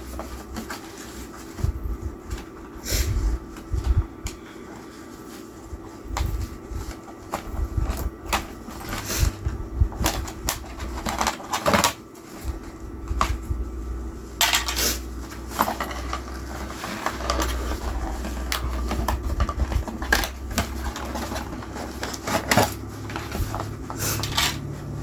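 Hands handling doll packaging: irregular rustling, tapping and clicking of plastic and cardboard as the doll is worked free of her box fixings.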